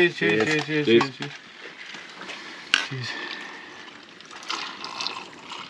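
Several men sipping and swallowing cocktails from cups and glasses just after a toast, with voices trailing off at the start and a single sharp knock a little under three seconds in.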